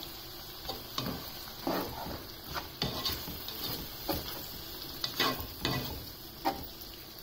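Slotted spatula stirring minced beef and vegetables in gravy in a pot, in short scraping strokes at irregular intervals, over a faint steady sizzle from the pan on low heat.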